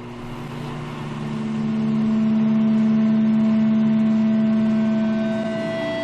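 A steady electronic drone of several held hum tones with a hiss of static over it, starting abruptly, swelling over the first couple of seconds and easing slightly near the end: the opening of an experimental noise-music piece.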